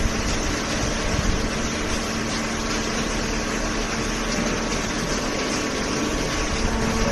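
Hydraulic paper baler running, its electric motor and hydraulic pump making a steady hum over an even rushing noise.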